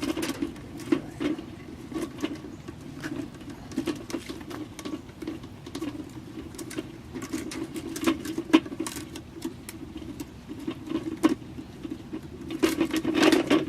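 Irregular clicks, taps and scratching as wooden dowel perches are fitted to a hanging bird feeder with zip ties, with a dense run of clicks near the end.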